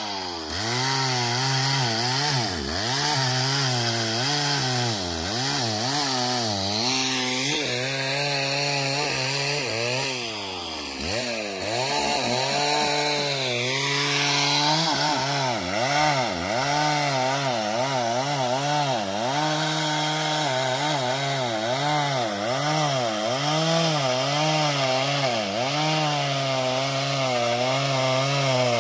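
Stihl two-stroke chainsaw cutting into a tree trunk, its engine pitch rising and sagging as the chain bites into the wood. About ten seconds in the revs drop off briefly, then climb back and the cut carries on.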